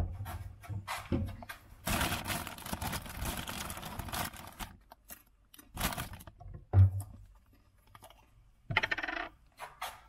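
Snacks being taken out of an open refrigerator: a plastic bag rustles and crinkles for a few seconds, then a few separate knocks and clatters follow, one with a dull low thud, as items are picked up and handled.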